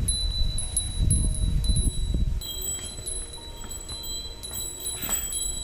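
Background music made of sustained, chime-like bell tones with short higher notes, over a low rumble that fades about two seconds in.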